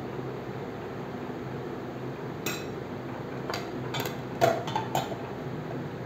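Dishes and cutlery clinking: a handful of light knocks and clinks in the second half, the loudest about four and a half seconds in, over a steady low hum.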